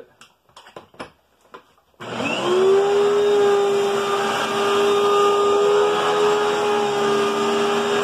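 Hoover Agility Cyclonic bagless upright vacuum switched on about two seconds in after a few light clicks: the motor spins up with a quick rising whine, then runs steadily with a loud, high whine as it is pushed over carpet.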